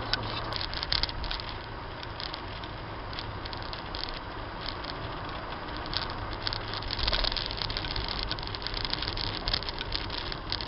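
Car driving along a narrow, rough asphalt lane, heard from inside the cabin: steady tyre and road noise over a low engine hum, with frequent small clicks and rattles.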